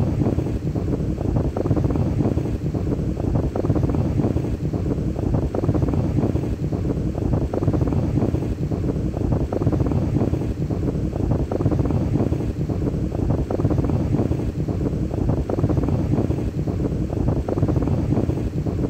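Wind buffeting the microphone as a steady low rumble, over choppy sea water washing against rocks.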